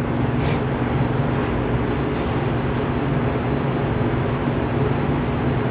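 Steady hum and rushing noise of commercial kitchen machinery, such as fans or refrigeration, running without change, with a few faint knocks.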